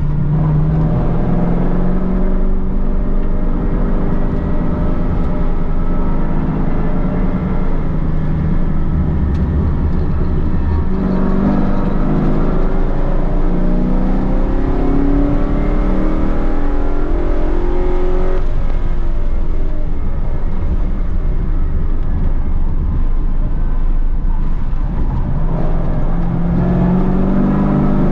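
Holden Commodore VE SS ute's V8 engine running hard on a race track, its revs climbing and falling. Twice the pitch drops sharply, then climbs again.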